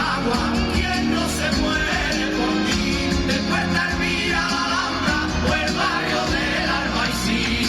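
Background pop-rock song with singing.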